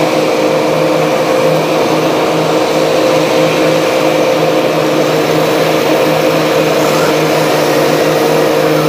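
Kubota DC-93G crawler combine harvester running steadily while harvesting rice: a loud, even engine and machinery drone with a constant hum.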